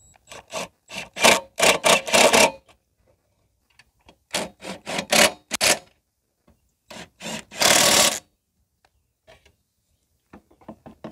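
Cordless drill/driver running in three groups of short bursts, driving the shroud bolts back into a Tecumseh mower engine; the last group ends in a longer run.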